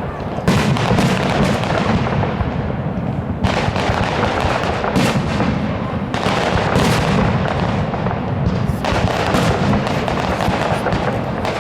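Fireworks display: a dense, continuous barrage of bangs and crackling, with new volleys breaking in every second or two.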